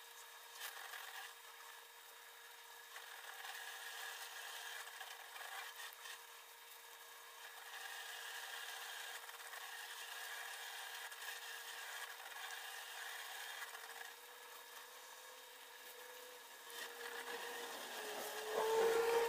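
Sweet potato stems being peeled by hand: soft, repeated snapping, tearing and rasping as the stringy skins are stripped off, over a faint steady hum. There is a louder handling noise near the end.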